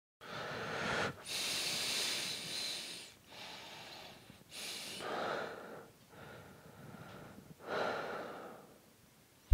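A man breathing slowly and deeply, about five long breaths in and out with short pauses between them.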